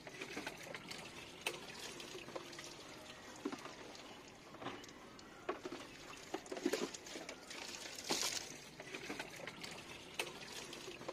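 Faint scattered clicks and light knocks, with a brief hiss about eight seconds in.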